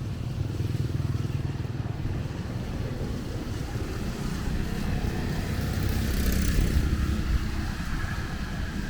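Motorbike traffic running past on a wet road in the rain, a low engine rumble with tyre hiss, one vehicle passing closest about six to seven seconds in.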